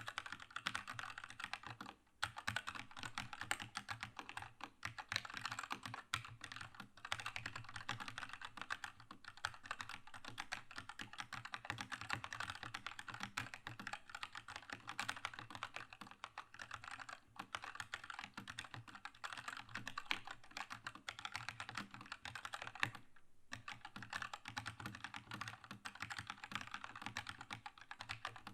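Keychron K2 mechanical keyboard with red linear switches being typed on steadily: a fast, dense clatter of keystrokes. There is a brief pause about two seconds in and another about five seconds before the end.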